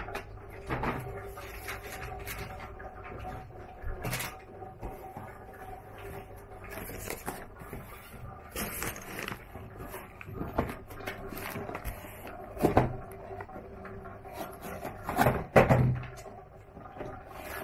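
Cardboard packaging being handled on a wooden table: scattered taps, rustles and knocks as the box is moved and pressed, with the loudest knocks near the end as its top flap is pulled open.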